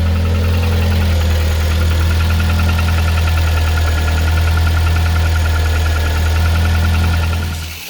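Kia Sportage 2.0-litre engine idling cold, with a fast, even knock riding over its steady running: the cold-engine knock of a high-mileage engine. It fades out just before the end.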